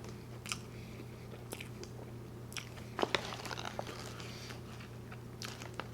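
Close-up chewing of a burger mouthful: quiet wet mouth clicks and smacks scattered throughout, a few louder ones about three seconds in.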